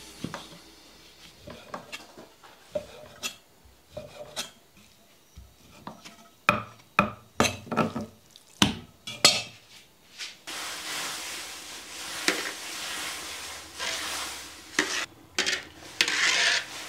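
Cleaver slicing raw meat on a thick wooden chopping block: a series of knocks of the blade on the wood, loudest and most frequent in the middle. About ten seconds in, this gives way to a steady hiss of meat blanching in a wok of boiling water, with a wire skimmer clinking and scraping against the wok.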